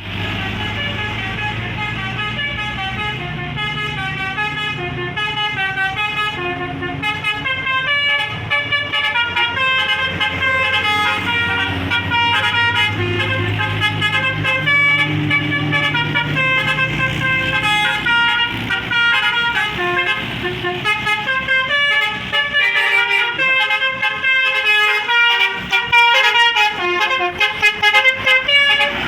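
An Indonesian bus's 'telolet basuri' multi-trumpet horn playing a quick tune of stepping notes. The bus engine hums low underneath for about the first two-thirds, then the notes come choppier and louder toward the end.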